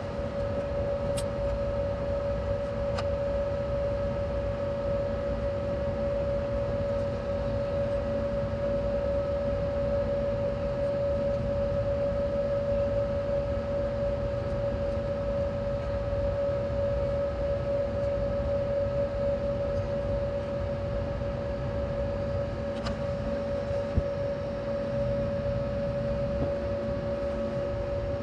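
Airliner cabin noise while taxiing after landing: a steady low rumble with a constant droning tone over it, the jet engines at idle. A few faint clicks, one sharper tick near the end.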